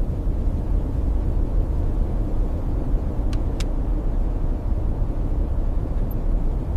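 Strong blizzard wind blowing in a steady low rush, with two faint clicks about three and a half seconds in.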